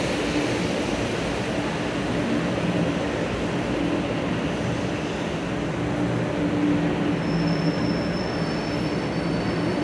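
500 series Shinkansen train rolling slowly alongside the platform as it pulls in: a steady rumble with a low motor hum, and a thin high whine joining about seven seconds in.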